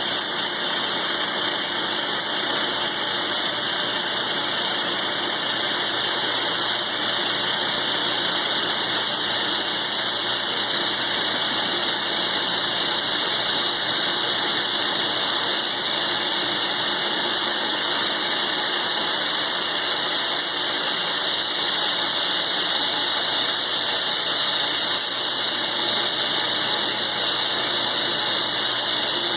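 Milling machine slowly cutting thick steel with a roughing end mill: a steady, high-pitched cutting sound over the machine's running.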